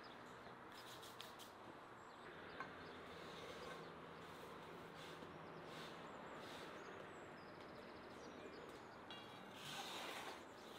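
Faint outdoor ambience: a steady low hiss with a few soft clicks and scattered distant bird chirps, and a short rapid ticking trill near the end.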